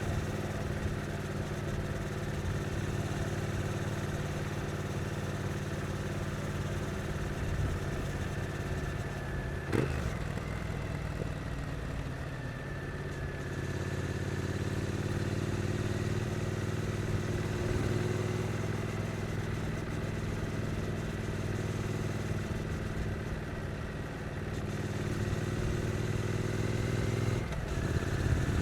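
2022 Triumph Street Twin's 900 cc parallel-twin engine running steadily while the motorcycle is ridden gently in town traffic. There is a single sharp knock about a third of the way through, and a brief shift in the engine note near the end.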